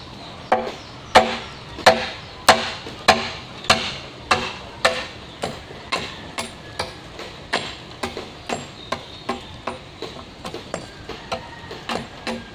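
Repeated chopping blows of a blade against a standing bamboo culm, knocking off its side branches: a steady rhythm of sharp strikes about every 0.6 s, each with a short ring, heavier in the first few seconds, then quicker and lighter strokes.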